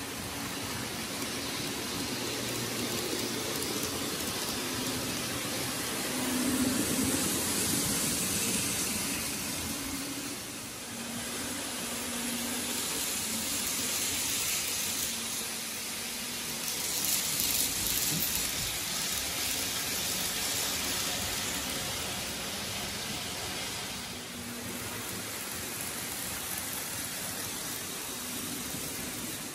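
N gauge model trains running on the layout's track: a steady whirr and hiss of small motors and wheels on rails, swelling twice as trains pass close by.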